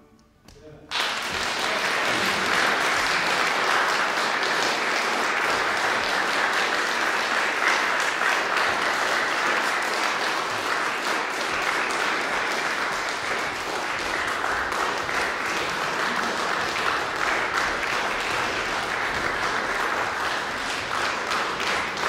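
Audience applauding at the end of a live performance. After about a second of quiet, the applause breaks out and then goes on steadily.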